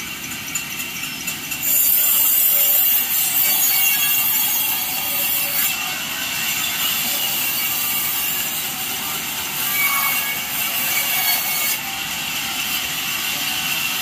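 Large vertical band saw cutting through a log fed along the saw table: a steady rasping hiss of sawing, loudest from about two seconds in until about six seconds in.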